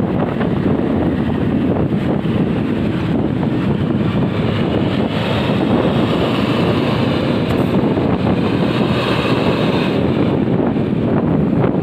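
Steady wind rushing over the microphone of a camera moving through traffic, mixed with the running of vehicle engines and tyres on the road. A higher-pitched noise joins for a few seconds in the middle, while a bus runs close alongside.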